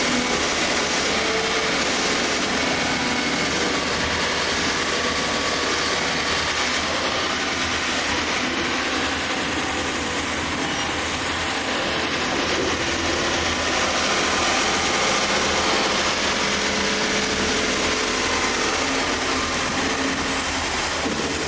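Komatsu excavator running steadily while dredging: diesel engine and hydraulics under load, with a few faint steady whining tones over the machine noise.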